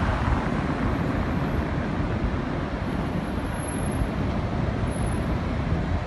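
Steady road traffic noise: a low, uneven rumble with a hiss over it as vehicles drive past.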